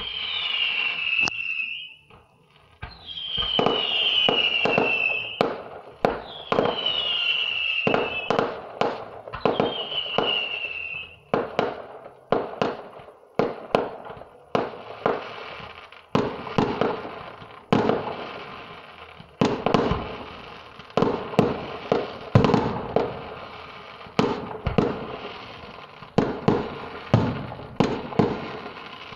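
Fireworks display: four whistling shells in the first ten seconds or so, each a falling whistle about two seconds long, mixed with sharp bangs. After that comes a fast, irregular run of bursting bangs, often several a second.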